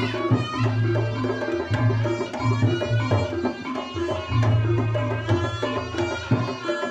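Reog Ponorogo gamelan music, with kendang drums playing a steady repeating pattern under a high melody line.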